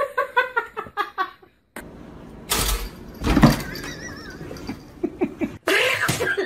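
High-pitched laughter in quick repeated bursts, then a loud burst of noise, and more laughter near the end.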